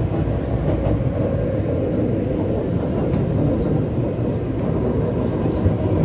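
Steady low rumble of a Taipei Metro high-capacity, steel-wheel-on-steel-rail train running along the track, heard from inside the carriage.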